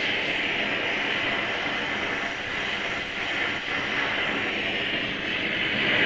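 Oxy-acetylene torch flame giving a steady hiss while heating a thread-locked joint to about 350 degrees to soften the Loctite.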